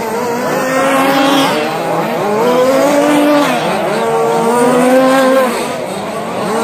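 Radio-controlled short course trucks racing, several motors whining at once, their pitch climbing and dropping over and over with the throttle; the sound eases off briefly near the end.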